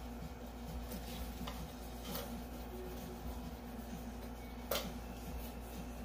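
Quiet room tone with a steady low hum and a few soft, brief taps and clicks, the loudest about three quarters of the way through.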